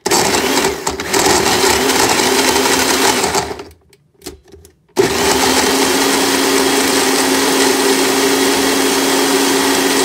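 Electric blender running in two bursts, about three and a half seconds, then after a short pause another run of about five seconds, blending a thin pancake batter of eggs, milk, dried figs and oats.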